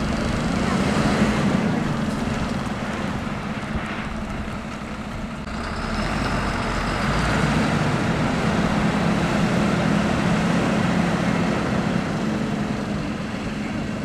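Fire engine's engine idling, a steady low hum that grows louder about six seconds in.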